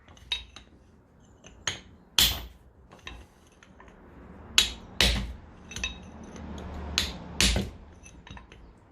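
Hammer striking a chisel against the steel hub, knocking the remains of an old front wheel hub bearing out: about ten irregular, sharp metal-on-metal blows with a brief ring.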